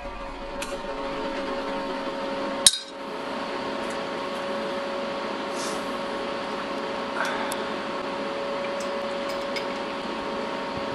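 A single shot from a Smith & Wesson Model 500 revolver in .500 S&W Magnum with a compensated barrel, a sharp report about three seconds in. After it comes a steady background hum with a few faint metallic clicks as the revolver is handled.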